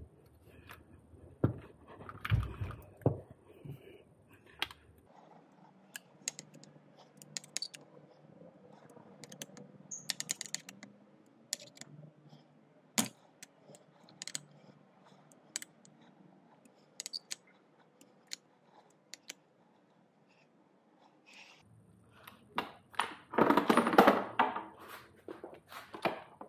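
Scattered small metallic clicks and taps of hand tools and bolts against an electric motor's casing and brackets. Near the end comes a louder cluster of clunking and rattling as the motor is handled into the bike frame.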